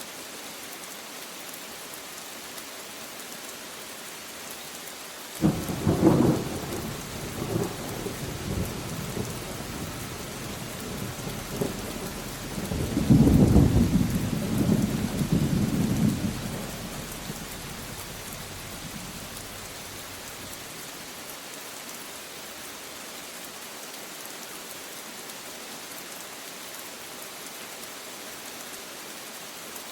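Steady rain falling, with a sudden thunderclap about five seconds in. The thunder rumbles on, swells louder again a few seconds later, and dies away well before the end, leaving the rain.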